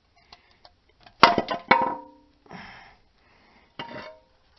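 Sharp metal-on-metal clanks that ring briefly: a quick clatter of several knocks about a second in, and one more clank near the end.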